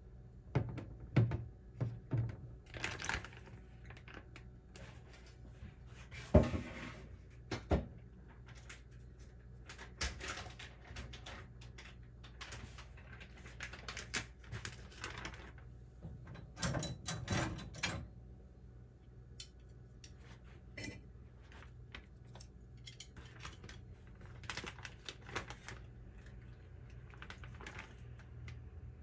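Kitchen handling sounds: scattered clicks, clatters and a few sharp knocks of dishes, utensils or containers being set down and moved, in clusters with short gaps, over a low steady hum.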